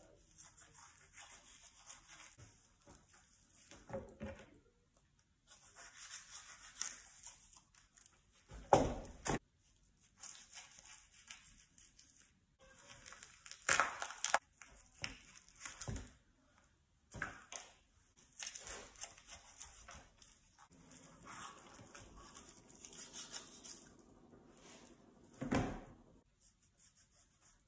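Raw turkey being cut and pulled apart by knife and hand: intermittent wet tearing and slicing of skin, meat and joints, with a few sharp knocks against the plastic cutting board.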